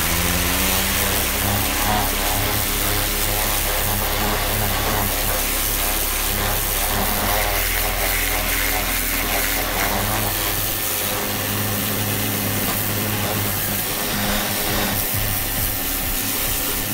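Pressure washer running, its jet of water hissing against an alloy wheel and tyre over a steady motor hum, blasting off brake dust and road grime. It comes on abruptly at the start and keeps going without a break.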